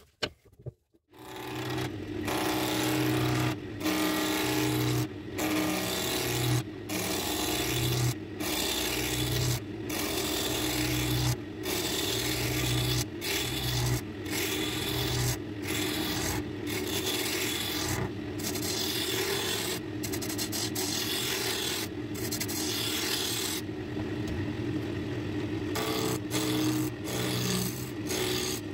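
A wood lathe starts about a second in and a turning gouge cuts a spinning mahogany spindle blank, a continuous rasping cut over the lathe's steady hum. The cut breaks off briefly every second or two as the tool is moved along the work.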